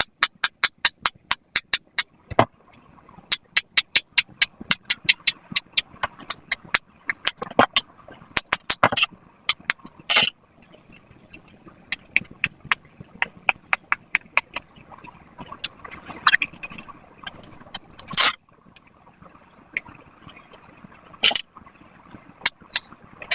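Bubbles of silicone pop-it fidget toys being pressed one after another: sharp popping clicks in quick runs of several a second, with short pauses between runs.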